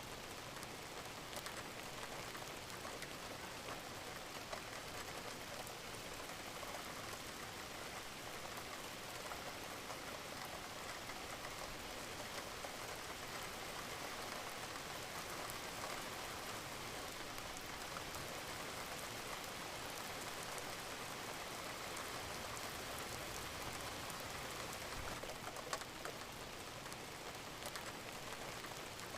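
Steady rain falling: an even hiss with a few sharper drop clicks here and there.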